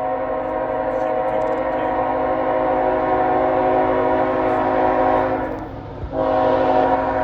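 Norfolk Southern freight locomotive's air horn sounding a chord in a long blast of about five and a half seconds, a short break, then a second blast, over a low rumble.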